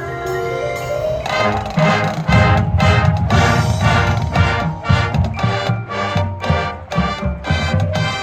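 Marching band with front-ensemble mallet percussion playing its contest show: a held chord gives way about a second in to loud, driving rhythmic hits with drums.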